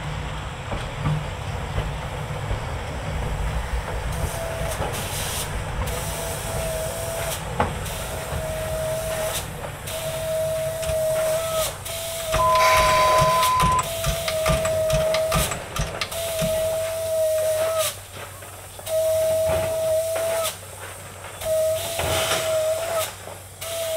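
C58 steam locomotive rolling slowly with its cylinder drain cocks open: a low rumble at first, then a steady rhythm of steam hisses, each carrying a whistling tone about a second long. About halfway through there is one brief, higher steady tone.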